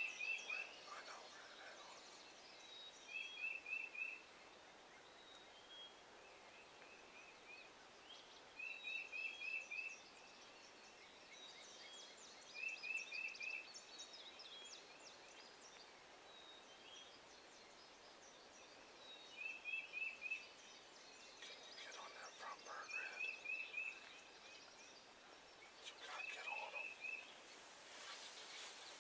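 Faint bird calls over quiet outdoor ambience: a short run of three or four quick notes repeats every few seconds, with distant Rio Grande wild turkeys calling now and then.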